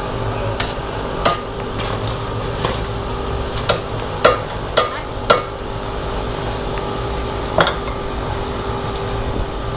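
Hammer blows on metal at a blacksmith's anvil: about seven sharp, ringing strikes at irregular intervals, most of them bunched in the middle, over a steady background hum.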